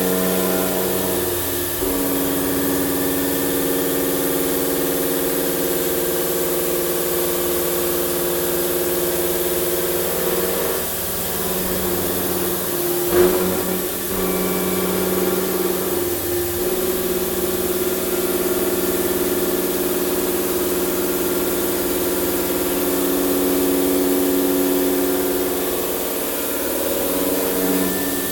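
Deckel FP50CC CNC milling machine face milling a steel plate with a 63 mm Mitsubishi face mill at 1100 rpm: a steady hum of several tones over a hiss. The tones shift a few times as the cutter changes its path, with a brief louder burst about 13 seconds in.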